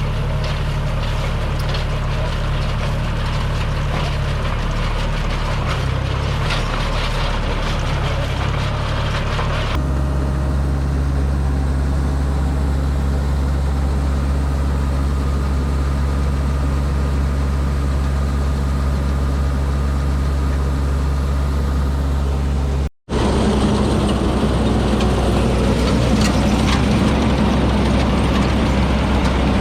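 Engine of a paddy harvesting machine running steadily with a deep, even hum. The sound changes abruptly about ten seconds in and drops out for an instant about 23 seconds in, as if spliced from separate takes.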